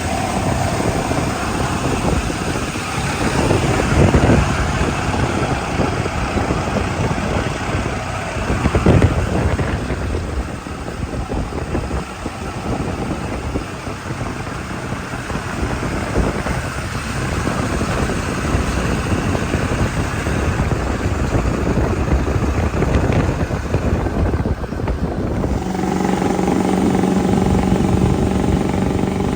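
Truck driving on the road: a continuous rumble of road and wind noise with a few louder swells. Near the end a steady engine hum with a clear pitch comes in.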